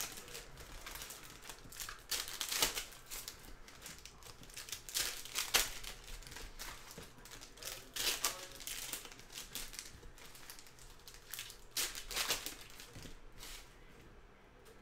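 Crinkling and rustling of opened foil trading-card pack wrappers as cards are handled and stacked, in irregular bursts that die down near the end.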